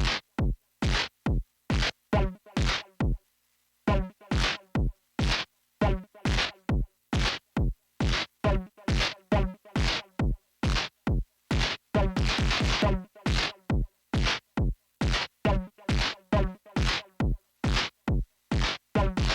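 Arturia's Korg MS-20 software synthesizer playing short percussive hits in a drum-machine-like pattern of about two to three a second, each hit a quick downward sweep. There is a short break about three seconds in, and a quick roll of rapid hits a little past the middle.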